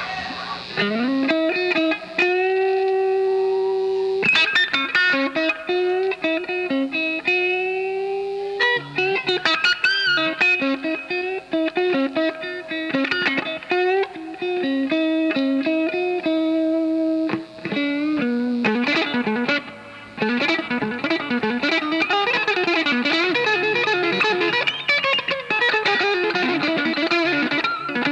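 Electric guitar solo: a single melodic line of long held notes with small slides between them, breaking into a quick run of rapid notes about two-thirds of the way through.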